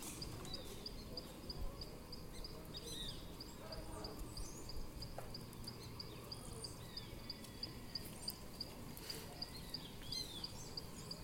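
Outdoor ambience: a steady high chirp repeating about four to five times a second, with scattered short bird calls over it.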